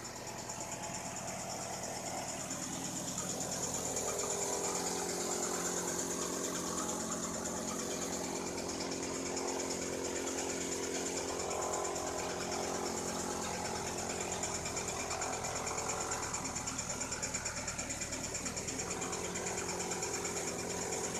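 A straw thresher and the engine powering it running steadily while straw is fed in by hand. The sound grows louder over the first few seconds, then holds steady.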